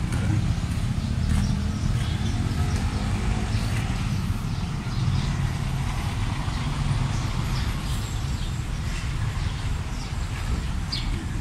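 Steady low rumble of road traffic, with an engine tone rising briefly about a second in.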